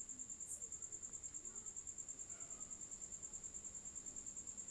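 A cricket trilling: a faint, high, rapidly pulsed tone, held steady.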